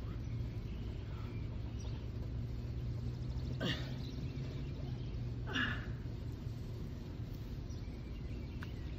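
Two short, sharp breaths, about four and six seconds in, from a man exercising between push-ups, over a steady low outdoor rumble.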